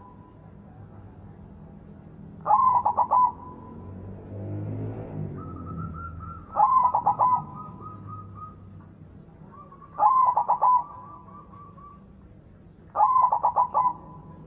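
White zebra dove (perkutut) cooing: four phrases of rapid stuttering notes, one every three to four seconds, each trailing off in a brief held tone. A faint low rumble is heard between the second and third phrases.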